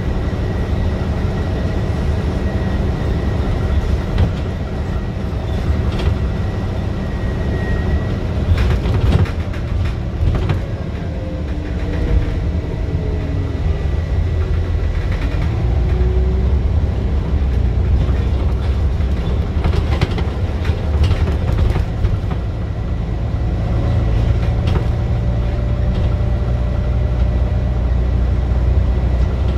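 Scania bus engine working hard, heard from inside the saloon: a loud thrash whose pitch steps up and down a few times as the bus pulls and changes gear. Interior fittings knock and rattle over bumps, most around ten and twenty seconds in.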